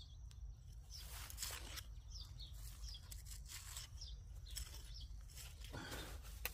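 A small hand tool scraping and digging through loose, finely tilled soil as sweet potatoes are unearthed by hand, in irregular soft scrapes. Faint high chirps sound in the background.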